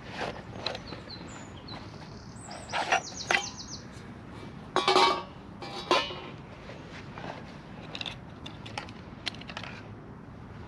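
Metal knocks and clatter as a titanium frying pan is set onto a small wood-burning stove, the loudest and ringing about five seconds in. Faint crackling comes from the fire, and a bird chirps in the first few seconds.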